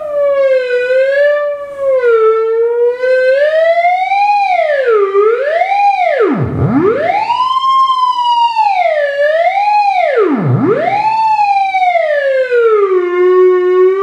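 Theremin playing one continuous tone rich in overtones, its pitch sliding smoothly up and down as the player's hand moves nearer to and farther from the vertical pitch antenna. About halfway through and again a few seconds later it swoops steeply down very low and climbs straight back up, and near the end it holds a steadier lower note.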